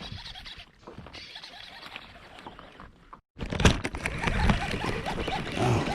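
Close scratchy rustling and clicking handling noise aboard a fishing kayak. It cuts out completely about three seconds in, then comes back louder and busier.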